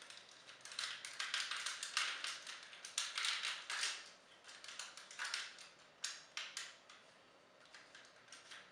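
Plastic parts of a Transformers action figure clicking, scraping and rattling as it is handled and transformed. The clicks come thickly for the first four seconds or so, then more sparsely, and are faint near the end.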